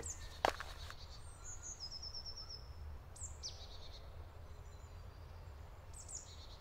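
Forest ambience with songbirds calling: a quick run of high repeated notes about two seconds in, a high falling call a second later, and more chirps near the end, over a low steady rumble. A single sharp knock comes about half a second in.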